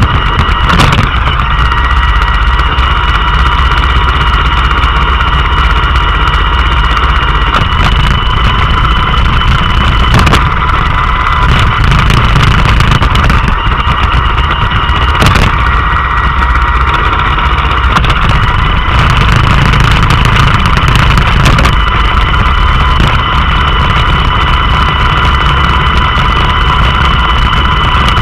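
Roomba robot vacuum running, a steady whine from its vacuum fan and brush motors over a low rumble, with a few sharp knocks, the loudest about a second in and near 10 and 15 seconds.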